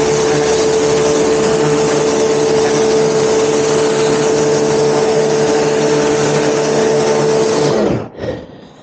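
Pressure washer running at full pressure: a steady motor and pump whine over the hiss of the water jet. About eight seconds in it shuts off, its pitch falling as it winds down.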